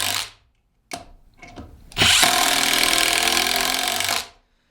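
Kobalt brushless 1/4-inch impact driver hammering a bolt in: the first run stops right at the start, a few light clicks follow, then it runs again for about two seconds and stops abruptly.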